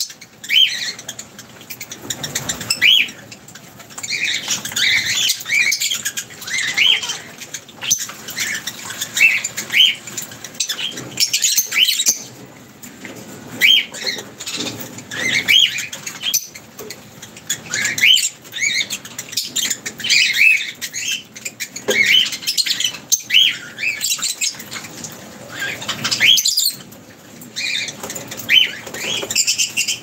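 A flock of lovebirds chirping: many short, high calls repeated over and over, with wing flaps as the birds fly to and from the perch.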